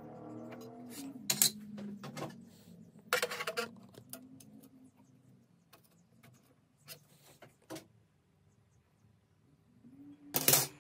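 Scattered metallic clicks and clinks of a square and a steel rule being handled against a table saw's metal table and blade guard, the loudest cluster near the end. A low hum underlies the first few seconds.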